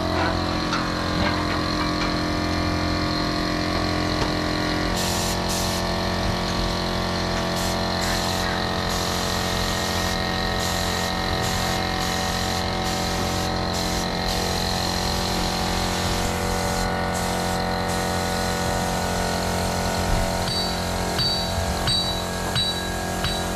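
Air compressor running steadily behind a spray gun's hiss of paint being sprayed, the hiss cutting out briefly now and then as the trigger is released. The compressor's drone shifts in pitch about five seconds in, and faint high chirps repeat near the end.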